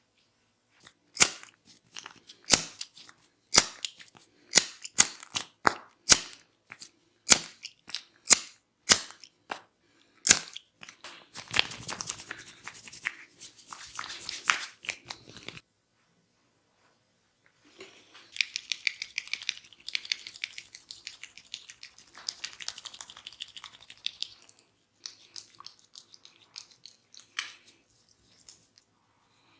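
Close-miked barber head massage: about a dozen sharp hand strikes, roughly a second apart, then two stretches of dense crackly rubbing and scratching with a short pause between them.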